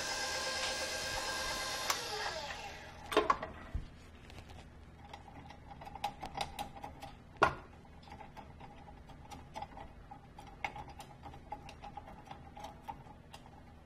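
Stand mixer motor running, then slowing with a falling pitch to a stop about two to three seconds in. A couple of knocks follow, then a run of light clicks and scrapes as a spatula works around the stainless steel mixing bowl.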